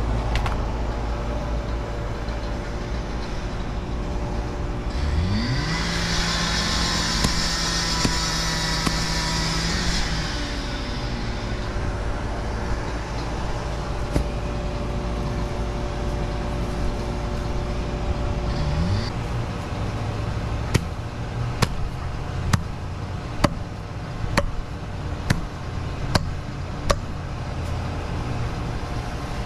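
Engine running steadily. It revs up about five seconds in, holds high for about five seconds with a hiss over it, drops back, and rises again briefly near twenty seconds. A run of sharp taps comes near the end.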